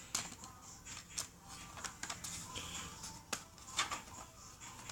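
Light scattered clicks and taps of a laptop's cover plate being handled and set in place, a few irregular knocks several seconds apart.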